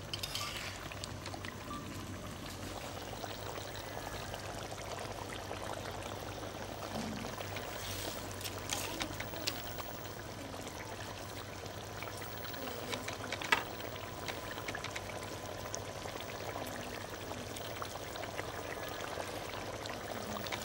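Hilsa fish curry simmering in a metal wok, the gravy bubbling steadily, with a few sharp clicks, the loudest a little past the middle.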